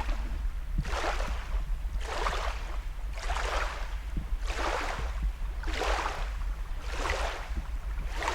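Canoe paddle strokes in the water: an even swish roughly every second and a quarter, about seven in all, over a steady low wind rumble on the microphone.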